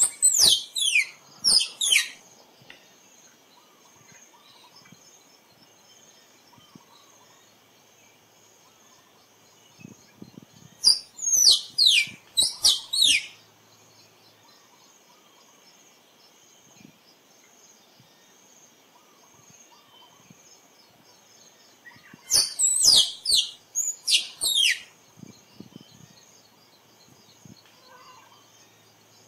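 A squirrel calling in three bouts about ten seconds apart, each a quick run of sharp, high chirps that sweep downward in pitch. A faint steady high insect drone runs underneath.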